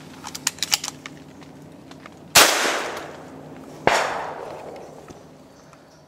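Two shotgun shots about a second and a half apart, each echoing away over about a second, the second a little quieter. They come after a quick run of clicks.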